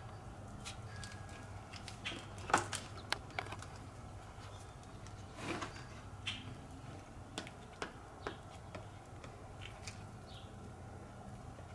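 Faint scattered taps and short scrapes of hand tools working resin into a wet fiberglass cloth layup, over a steady low hum.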